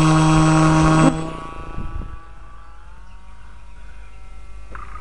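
Electric motor and propeller of a foam RC plane running at high throttle with a loud, steady, pitched buzz. The buzz drops off sharply about a second in, then carries on faintly as the plane flies away.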